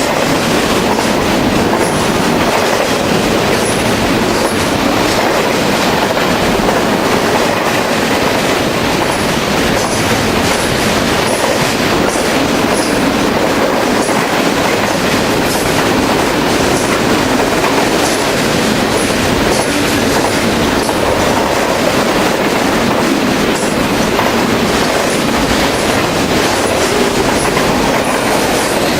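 Union Pacific freight train rolling past: a steady, loud rumble of cars on the rails, with short, faint high-pitched wheel squeals now and then.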